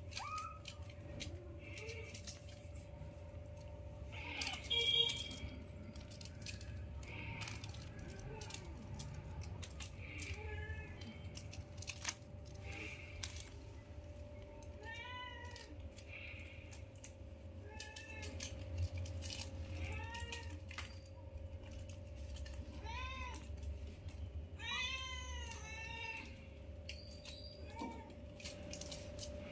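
Young kittens meowing in short, high, rising-and-falling calls, coming more often in the second half, with scuffling and light knocks as they wrestle.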